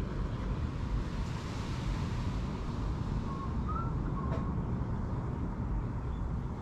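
Wind buffeting the microphone, a steady low rumble, with a few faint short chirps a little past the middle.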